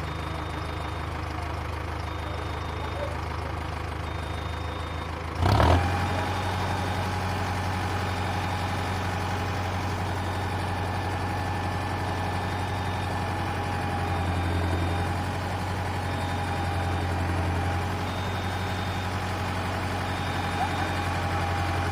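Heavy vehicle engine running steadily, with a faint short beep repeating about once a second. About five and a half seconds in there is a loud sudden burst, and after it the engine runs louder with a steady high tone.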